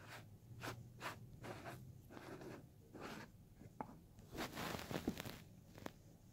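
Faint handling noises: a run of short rustles, scrapes and light clicks of objects being moved about, loudest and sharpest about five seconds in.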